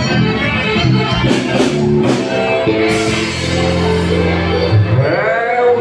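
Live forró band music playing loudly, with long held notes in the middle.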